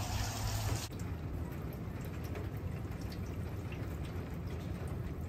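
Steady rain falling, with scattered drips.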